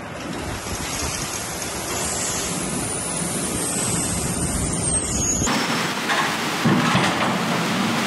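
Steady rushing of dry ground feed pouring from a loader bucket into a vertical-auger feed mixer wagon, over a low rumble. About five and a half seconds in it changes abruptly to a brighter, hissier noise as a wheel loader works a grain pile.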